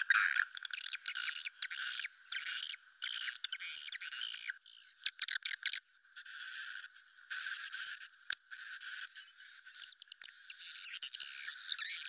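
Recorded swiftlet calls, a 'suara inap' roosting-call track of the kind played from speakers in swiftlet houses to draw the birds in to roost. High-pitched chittering and twittering comes in short spells broken by brief pauses, with a longer trilling stretch past the middle.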